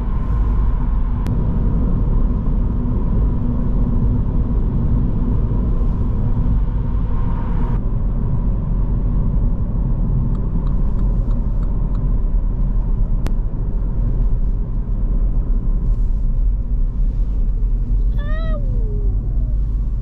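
Steady low rumble of a Mini Cooper's engine and tyres heard inside the cabin while driving. The extra hiss and steady hum of the tunnel cut off about eight seconds in as the car leaves it. Near the end there is a brief high call that falls in pitch.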